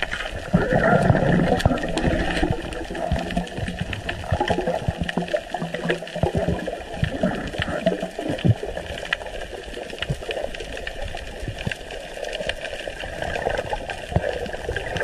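Muffled underwater noise as a diver moves through the water, with many sharp clicks and crackles throughout. A low, muffled pitched sound is heard in the first couple of seconds.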